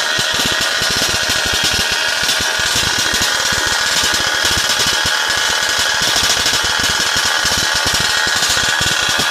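Two-stroke petrol engine of a large-scale RC car running steadily through a Flatto Racing SF RC 40 tuned expansion pipe, a fast stream of exhaust pulses, on its first run with that pipe.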